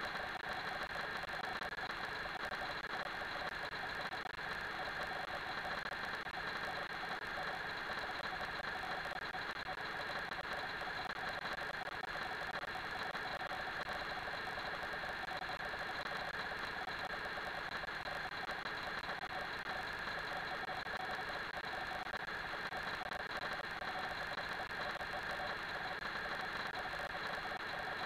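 Steady mechanical hum and hiss of the rink's background noise, unchanging throughout with no distinct knocks or voices.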